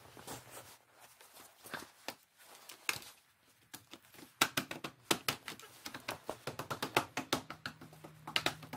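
Plastic wheel cover being fitted by hand onto a steel car wheel: a few scattered clicks, then from about halfway a quick run of sharp taps and snaps, several a second, as it is pressed and knocked into place.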